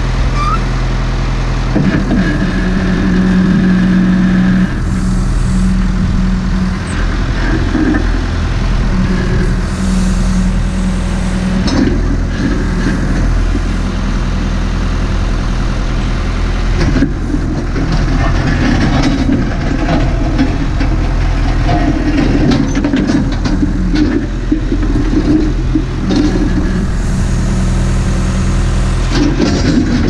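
Diesel engine of a Massey Ferguson MF50E backhoe running steadily while the rear bucket is worked, with a stronger note coming and going in stretches during the first dozen seconds. In the second half there is rougher, scraping noise as the bucket teeth drag through the gravel.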